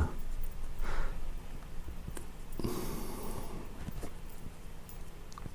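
A person breathing audibly: a soft breath about a second in and a longer, louder breath in the middle, with faint light clicks between them.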